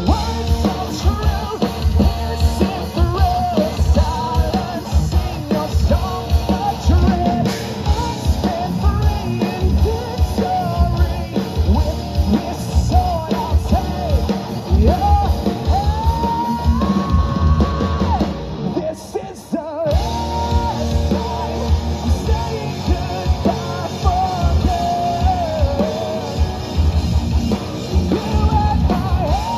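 Live rock band playing: drum kit, electric guitars and bass under sung and shouted lead vocals. About two-thirds of the way through the band breaks off briefly, then comes back in at full volume.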